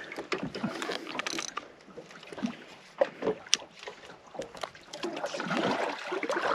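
Water lapping and slapping against the hull of a small drifting boat, with scattered small knocks and clicks.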